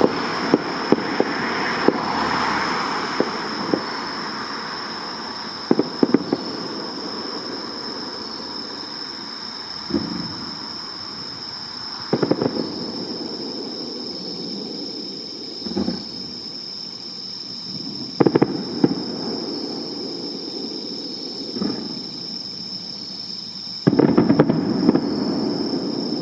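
Fireworks bursting: a rapid string of sharp bangs at the start, then single and double bursts every few seconds, and another dense crackling volley near the end.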